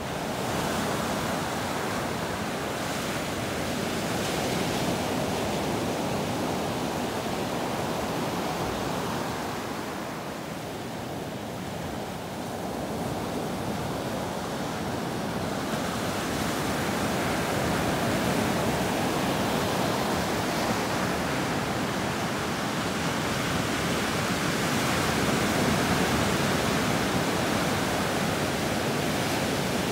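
Pacific Ocean surf breaking and washing up a sand beach: a steady rush that eases for a couple of seconds partway through and then builds again as the next waves come in.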